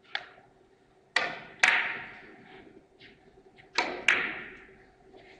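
Five sharp, hard clicks: a faint one, then two pairs about half a second apart. Each rings out briefly in a large hall.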